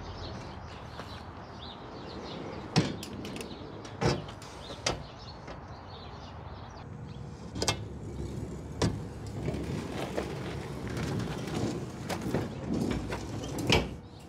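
Heavy steel fallout-shelter hatch door rolling on its rollers along the rails, a rumbling run broken by about six sharp knocks.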